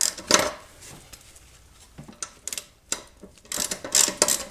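A wrench clinking and clicking on a lawnmower's blade bolt and steel blade as the bolt is worked loose. There are sharp metal clanks about a second in, a few lighter clicks, and a quick run of clicks near the end.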